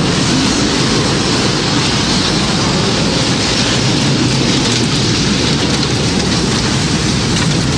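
Tornado storm sound effect: a loud, steady roar of wind and heavy rain with no breaks.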